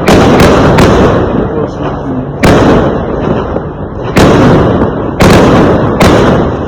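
Fireworks going off: about nine loud, sharp bangs at uneven intervals, three close together at the start and a quick cluster near the end. Each bang trails off in a rumbling echo.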